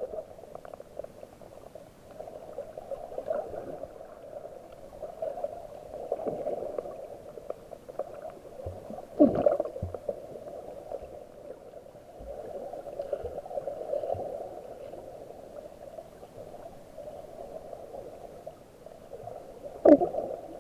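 Muffled underwater water noise heard through a submerged camera: a steady dull gurgle, with brief louder gurgling swooshes about nine seconds in and again near the end.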